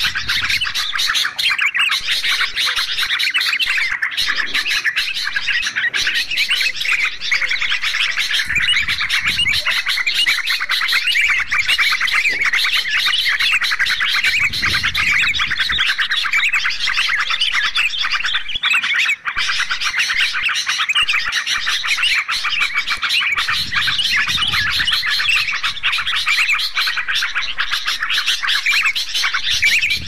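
Dense, unbroken chorus of bulbul chatter, yellow-vented bulbuls and sooty-headed bulbuls calling over one another in quick, overlapping chirps. It is a lure recording for trapping these birds.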